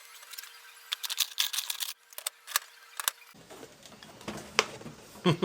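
Irregular sharp metallic clicks and light clinks of metal parts and tools being handled around a steel keyless drill chuck, thickest in a quick cluster about a second in.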